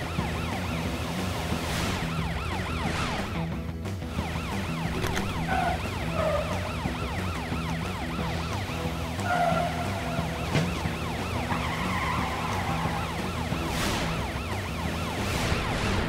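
Cartoon police car siren in a fast, rapidly repeating wail-yelp, over background music with a steady low bass pattern. A few short whooshes of cars speeding past.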